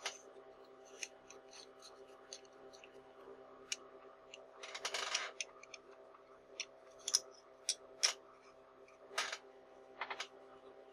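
Small clicks and scrapes of fingers handling and turning the front ring of a Nikon Series E 100mm f/2.8 lens, with a longer scraping rub about five seconds in.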